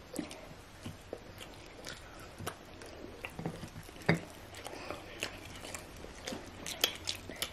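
People eating roasted meat and ugali by hand: quiet chewing and biting with scattered small clicks and taps of fingers and food on plates, the sharpest about four seconds in.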